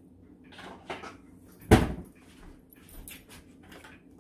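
A wooden kitchen cabinet door shut with one sharp bang a little under two seconds in, among lighter clicks and knocks of items being handled.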